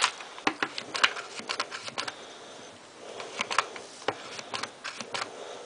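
Hands working with lace and chicken wire while gluing a bow on: irregular light clicks, taps and rustles, with a sharper click at the very start.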